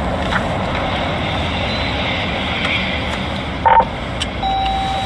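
Patrol car interior noise as the squad car drives slowly down an alley, with a short loud electronic beep about three and a half seconds in. A steady high electronic tone starts near the end.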